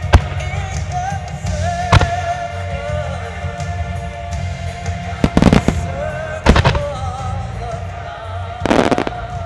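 Fireworks shells bursting in sharp bangs over music for a starmine display: the loudest bang comes right at the start, another about two seconds in, a quick run of bangs about halfway, one more a second later, and a crackling rattle of small bursts near the end.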